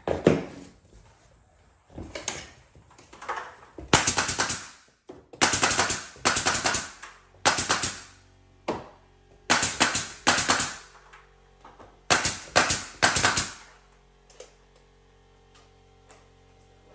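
Pneumatic nail gun shooting nails through crown molding into the wall, in about six rapid bursts of sharp shots, then stopping a few seconds before the end.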